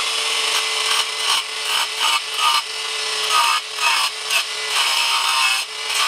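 Angle grinder with a cutting disc running at speed and cutting a thin strip off a ceramic tile: a steady motor whine under a gritty cutting noise that swells and drops as the disc bites into the tile.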